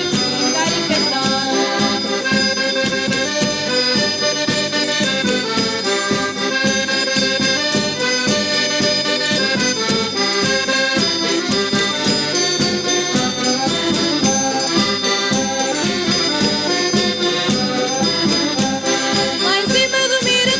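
Madeiran folk dance tune played by a traditional folk group: a lively instrumental passage with a steady beat, with singing coming in right at the end.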